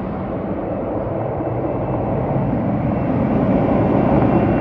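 Twin General Electric CF34 turbofan engines of an Embraer E190 at take-off power, a steady jet noise slowly growing louder towards the end.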